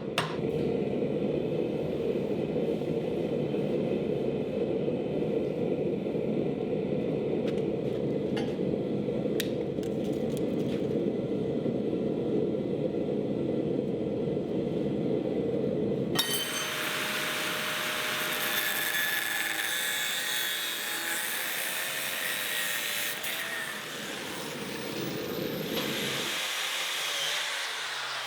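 A steady low roar for about the first sixteen seconds. It then cuts over abruptly to a power tool cutting and grinding steel bar stock, a high hissing grind over a wavering motor whine, which eases near the end.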